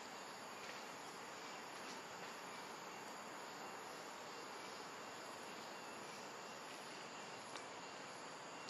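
Faint, steady chorus of insects, with continuous high-pitched chirring tones.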